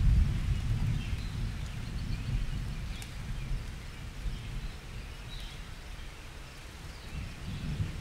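Outdoor forest ambience: a low rumble, loudest at the start and fading over the first few seconds, with faint high bird chirps above it.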